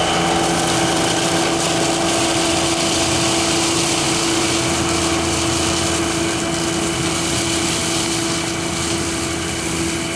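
A John Deere compact tractor's engine running steadily, driving a PTO-powered Sweep-All lawn sweeper through leaves, with a hiss over the engine. The sound eases off slightly near the end as the tractor moves away.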